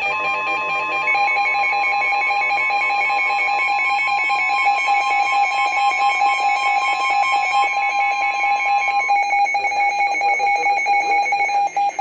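Emergency Alert System attention tone broadcast over NOAA Weather Radio: a loud, steady electronic alarm tone signalling that a warning message is about to follow.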